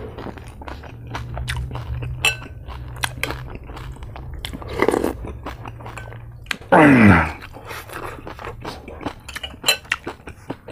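Close-up eating sounds of crispy fried pork being chewed and crunched, with small clicks and clinks of cutlery against dishes. About seven seconds in comes the loudest sound, a short vocal sound falling in pitch.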